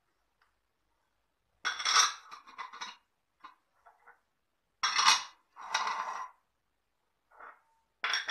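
Metal spoon clinking and scraping against a dish as spices are spooned into a mixing bowl, in three bursts of clatter with a few light ticks between.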